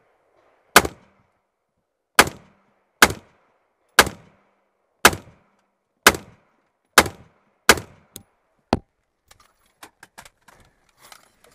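Nine rifle shots from an AR-style semi-automatic rifle fired out of a vehicle's side window, about one a second with a quicker pair near the end. The firing stops about nine seconds in, followed by light clicks and knocks.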